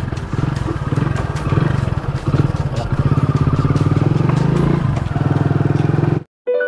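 Motorcycle engine running under load as it carries three riders away, its pitch rising and falling. It cuts off abruptly near the end, and soft music follows.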